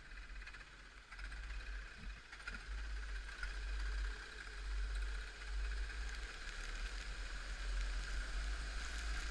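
Onboard sound of a racing kart on a wet track: a muffled engine drone under low wind buffeting on the camera, getting louder about a second in as the kart picks up speed.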